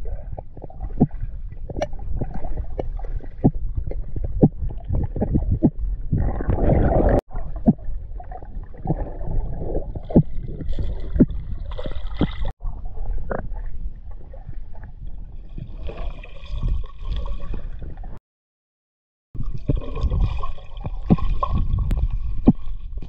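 Underwater noise in the river, picked up by a submerged camera: a muffled low rumble with frequent small clicks and knocks, and a louder gurgling rush about six seconds in. Faint steady tones come in during the second half, and the sound drops out for about a second roughly three-quarters through.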